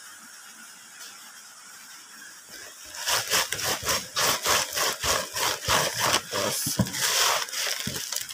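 Hands rubbing and kneading a bunch of fresh leafy greens against a woven bamboo tray: a quick rhythmic run of rustling scrunches, about two or three a second, starting about three seconds in.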